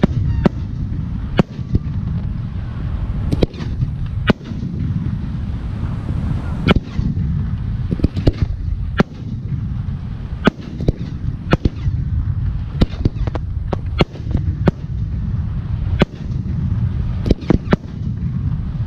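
Aerial firework shells bursting one after another: sharp bangs at irregular intervals, roughly one a second, over a steady low rumble.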